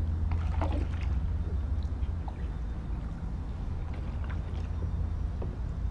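Kayak paddle working through floodwater: scattered small splashes, drips and trickles from the blade, over a steady low rumble.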